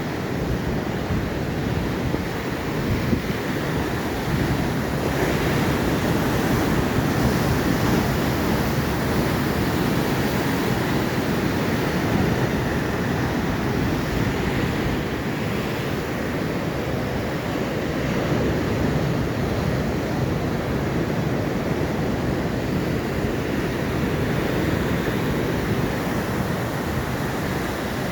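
Atlantic Ocean surf washing onto the shore in a continuous, steady roar that swells gently now and then, with wind buffeting the microphone.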